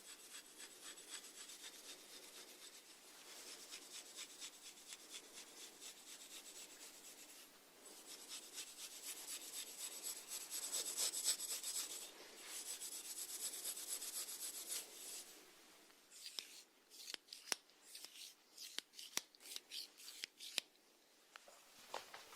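Snails feeding, their rasping mouthparts scraping and crunching at food in a dense stream of tiny crackling clicks, which thins out to scattered separate clicks in the last few seconds.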